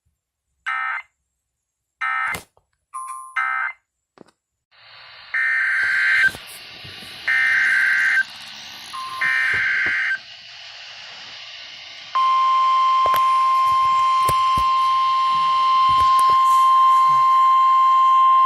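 NOAA Weather Radio alert signalling: three short buzzy bursts of EAS data tones (the end-of-message code) a second apart, then, over radio hiss, three longer buzzy SAME header bursts a second apart for a new warning. About twelve seconds in, the steady single-pitch 1050 Hz warning alarm tone starts and holds.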